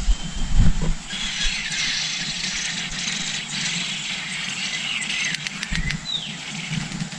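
Birds calling outdoors: two short down-slurred whistles about six seconds apart, over a steady high hiss of outdoor ambience.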